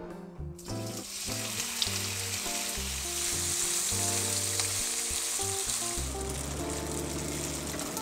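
Strips of firm tofu sizzling in hot oil in a nonstick frying pan, turned with a spatula; the sizzle starts suddenly about half a second in. Background music plays underneath.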